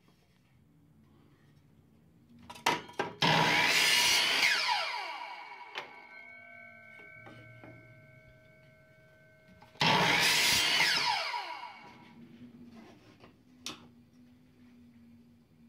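Miter saw cutting through a wooden dowel twice, about three and ten seconds in: each time the motor starts up loud, the blade cuts through the dowel, and the motor winds down in a falling whine once it is let off.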